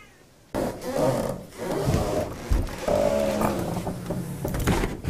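Cordless drill running under load against the trailer's diamond-plate panel, its pitch shifting as it bites. It starts about half a second in and stops just before the end.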